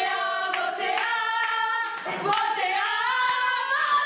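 A group of young voices singing together, with a few hand claps.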